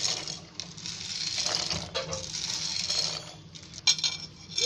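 Dry macaroni sliding off a ceramic plate and dropping into a pot of boiling water, a hissy rustle in stretches, with a couple of sharp clicks near the end.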